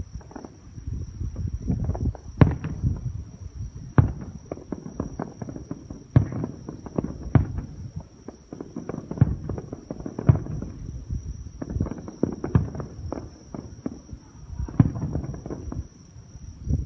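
Fireworks going off: a string of irregular sharp bangs, with smaller crackles and a low rumble between them.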